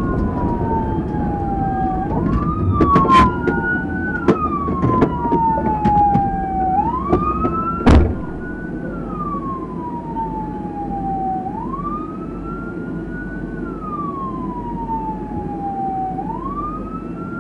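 Police car siren in wail mode, sweeping up and down slowly about every four and a half seconds, over the rumble and sharp rattles of the cruiser driving across a rough field. A loud thump about eight seconds in, after which the rumble drops away.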